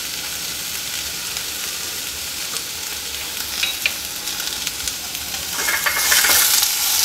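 Sliced vegetables sizzling steadily in oil in a nonstick frying pan. About five and a half seconds in, a wooden spatula starts stirring them, and the sound turns louder, with scraping and tossing.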